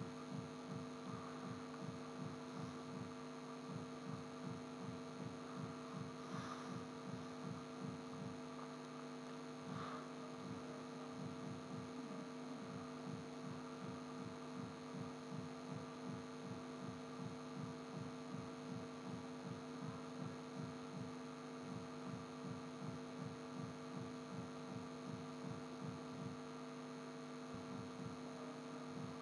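Low steady electrical hum with a rhythmic throbbing pulse, a few beats a second.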